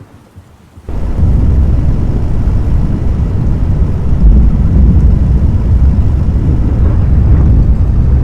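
Violent tornado winds buffeting the microphone: a loud, continuous low rumble that cuts in abruptly about a second in, after a moment of near silence.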